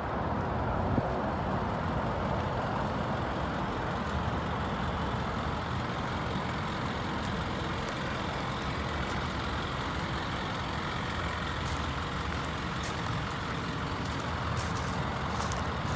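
Steady low rumble of an idling truck engine, with light crunching clicks of footsteps on gravel toward the end.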